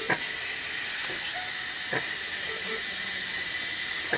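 Steady hiss of oxygen flowing, with a short soft click about every two seconds.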